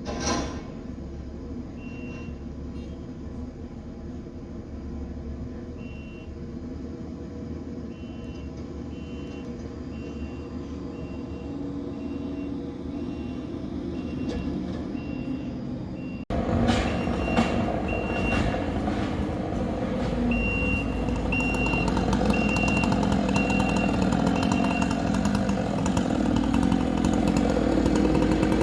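Skid steer engine running as it hauls logs, with a reverse alarm beeping about once a second in several runs. Partway through the sound jumps to a louder, closer engine.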